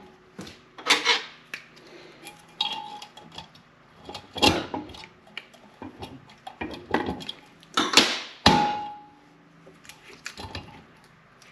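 Metal clinks and clacks of snap ring pliers and a steel snap ring against the aluminium overdrive extension housing of a 47/48RE transmission as the snap ring is worked into its groove. There are a handful of separate sharp clacks, some with a brief metallic ring, the loudest about eight seconds in.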